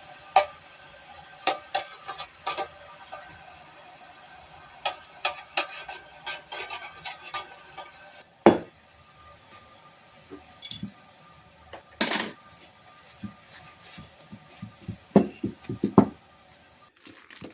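Small steel plier parts clinking and knocking against hard surfaces and containers as they are handled, in irregular clusters with a few louder knocks.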